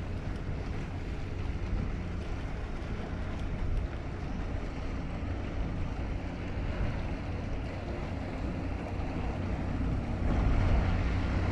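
Wind buffeting the microphone over open water, with a faint steady hum underneath; it grows louder about ten seconds in.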